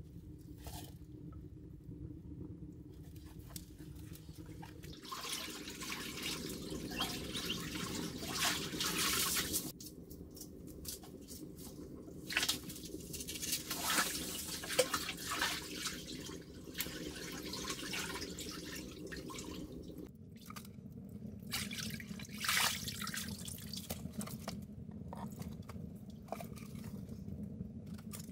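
Water splashing and dripping in a small tiled pool, in stretches separated by quieter moments.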